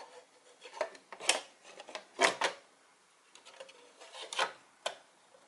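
Ultra small form factor desktop PC's case cover being fitted back on: about half a dozen sharp clicks and knocks as it is handled and snapped into place.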